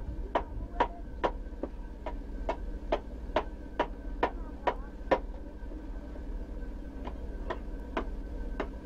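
Hand adze chopping into a block of wood at about two strokes a second, each stroke a sharp knock. The strokes pause for nearly two seconds about five seconds in, then resume.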